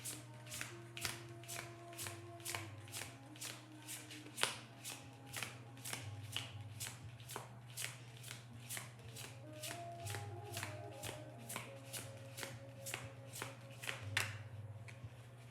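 Tarot cards being shuffled by hand, a steady run of about three soft slaps a second that stops near the end, over quiet background music.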